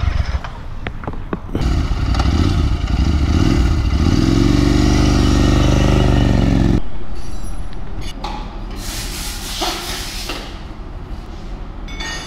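A vehicle engine runs close by, its pitch dipping and rising, and then stops abruptly about seven seconds in. After that there is lighter traffic noise with a couple of short hissing bursts.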